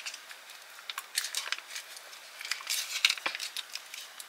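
Plastic MRE snack pouch crinkling in the hands and being torn open, in irregular bursts of crackly rustling.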